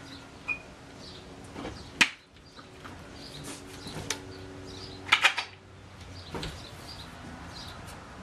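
Sharp knocks and clatter of wooden cabinet panels and their hardware being worked loose by hand. The loudest knock comes about two seconds in, and a quick cluster of knocks follows a little past halfway.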